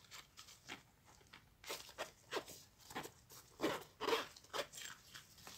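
A hard-shell zippered earphone case handled with rubber-gloved hands while its zipper is worked open: faint, short, irregular scrapes, rustles and clicks, most of them between about two and five seconds in.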